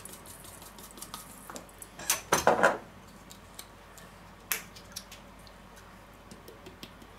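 Clinks and knocks of spice containers being handled over a stainless-steel bowl while raw chicken is seasoned, with a louder clattering knock about two seconds in as a glass salt shaker is set down on the worktop, and a sharp click about four and a half seconds in.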